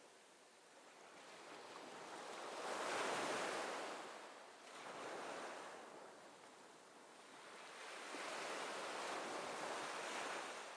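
Waves washing in surges, the sound swelling and fading three times, loudest about three seconds in.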